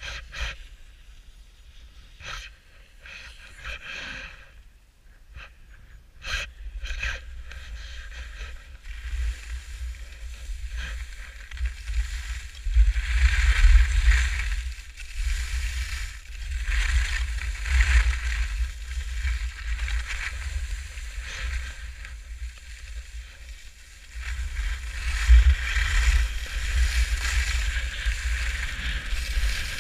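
Wind buffeting an action camera's microphone while skiing downhill, with the edges scraping over packed snow. It starts quietly with a few sharp clicks, then gets louder from about nine seconds in and swells in surges as speed builds.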